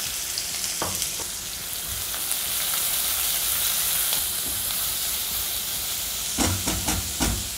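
Chopped onions sizzling steadily in hot oil in a kadai as they are stirred with a silicone spatula, which knocks against the pan several times near the end.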